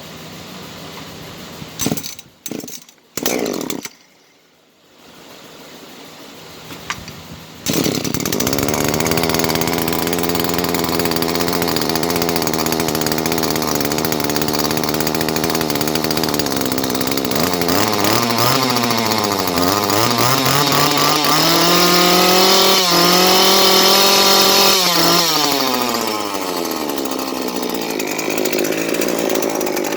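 Husqvarna 338XPT two-stroke chainsaw: a few short pull-start strokes, then it catches about eight seconds in and idles steadily. Over the second half it is revved up and down several times, held high for a few seconds, then drops back to idle.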